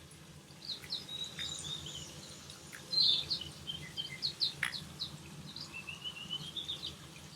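Grey-capped greenfinch calling: a run of short, high twittering chirps, loudest about three seconds in, with a rising string of notes in the second half.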